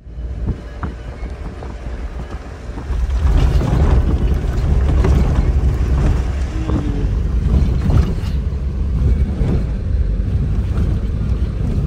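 Inside a moving car's cabin: steady engine and road rumble with wind noise, louder from about three seconds in, and scattered knocks and rattles as the car jolts over the rough, muddy road.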